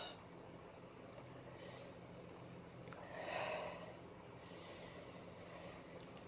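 Faint breathing of a person between sneezes in a sneezing fit, with a louder breath about three seconds in.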